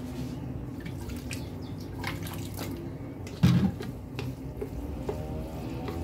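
Water poured from a plastic jug onto steamed vermicelli in a ceramic dish, the jug set down on the stone counter with a thump about three and a half seconds in, then a wooden spoon scraping and tapping as it mixes the wetted vermicelli. A steady low hum runs underneath.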